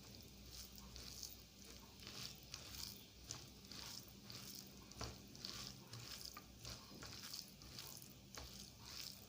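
Close-miked chewing of egg curry and rice: a run of soft, irregular wet smacks and squishes from the mouth.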